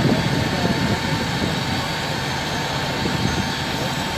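Fire engine's engine running steadily to drive its water pump, a constant mechanical drone with a thin steady whine over it. Faint voices come and go over the noise.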